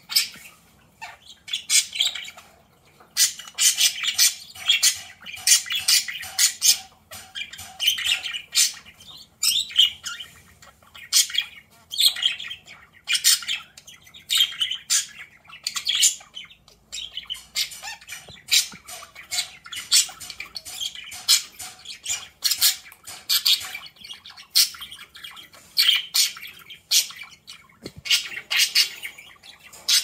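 Budgerigars chattering and squawking in a near-continuous run of quick, high, scratchy calls.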